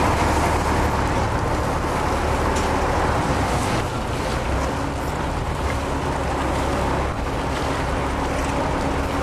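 Boat engine running steadily under a loud, even rush of water and wind.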